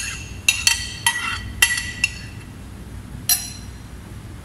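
A kitchen utensil clinking against a mixing bowl, which rings briefly after each hit. About six sharp clinks come in the first two seconds and one more a little after the three-second mark, as the tartar sauce ingredients are tipped and knocked into the bowl.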